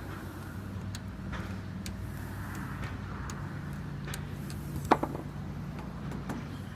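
Steady low machinery hum, with a few light clicks and taps of handling and one sharper click about five seconds in.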